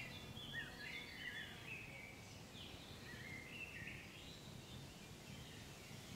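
Faint outdoor ambience with small birds chirping intermittently, short high twitters and quick gliding notes, over a soft low background rumble.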